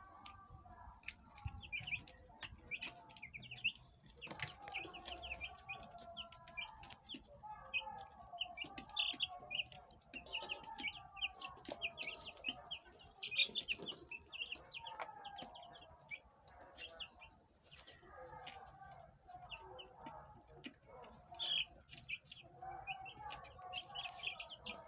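A brooder full of broiler chicks peeping, many short high cheeps overlapping in a continuous chorus, with scattered light clicks.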